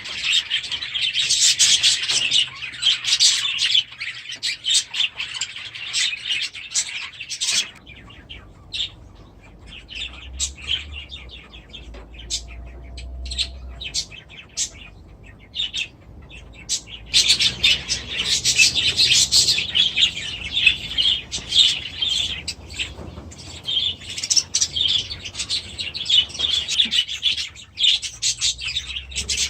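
A colony of budgerigars chattering and chirping together, a dense twitter that thins to scattered chirps for about ten seconds in the middle and then builds up again.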